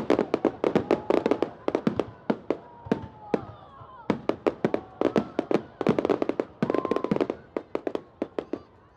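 Bonfire crackling, with dense, sharp pops and snaps of burning wood coming in quick irregular clusters, and a faint wavering whistle underneath.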